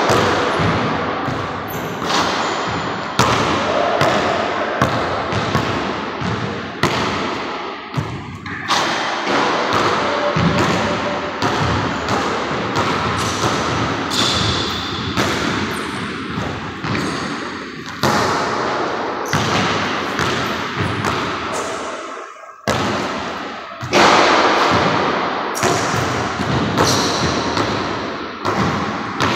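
Basketball bouncing on a hardwood gym floor: irregular thuds, one or two a second, each followed by a long echo.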